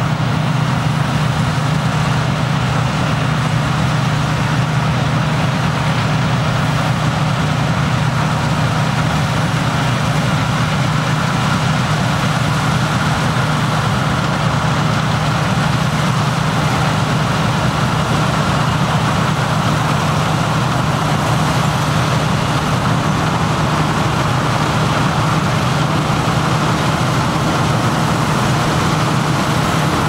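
CLAAS Mega Dominator 204 combine harvester running steadily while cutting and threshing winter barley: a steady low engine drone under an even mechanical rush.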